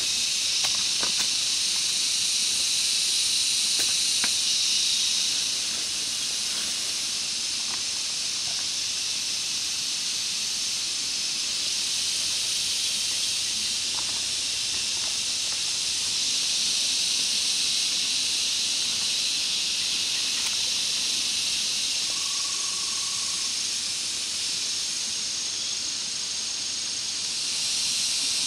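Steady high-pitched drone of a forest insect chorus, a little louder at the start and again near the end. A few faint clicks come near the start, and a single short note sounds about two-thirds of the way through.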